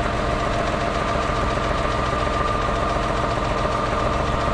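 2010 Ford Escape engine idling steadily with a knock; it doesn't sound good at all.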